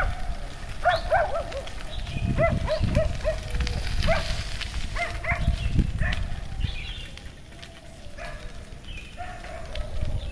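Breeze buffeting the microphone in gusts, easing about two-thirds of the way through, with an animal calling in short repeated notes. The calls come in quick runs of several a second in the first few seconds, then singly or in pairs.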